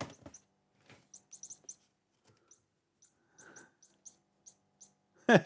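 A small pet giving a series of short, high-pitched squeaks, with a soft rustle about three and a half seconds in.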